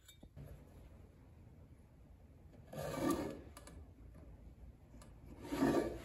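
Two short scraping rubs on a wooden axe-handle blank, about three seconds apart, as it is marked out with a pencil and caliper.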